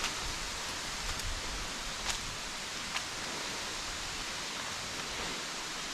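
Steady rush of a waterfall's falling water, an even hiss with a few faint clicks in the first few seconds.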